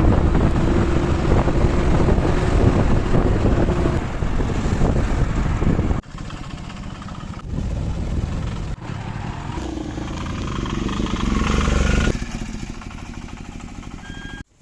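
Two-stroke chainsaw engine running, in short clips joined by abrupt cuts about six and twelve seconds in.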